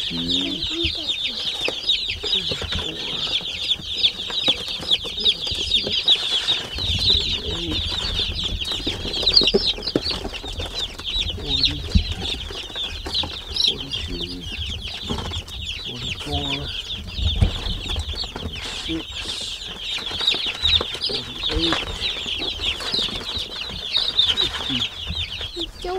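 A brooder full of baby chicks, mostly Cornish Cross meat chicks, peeping continuously: a dense chorus of many quick, high cheeps overlapping without pause.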